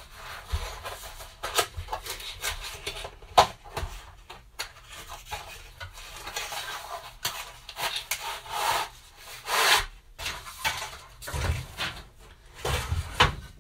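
A cardboard box being handled and opened, and a white-painted wooden plank board being slid out of it: irregular rubbing and scraping with scattered clicks, and a few low knocks near the end as the board meets the wooden table.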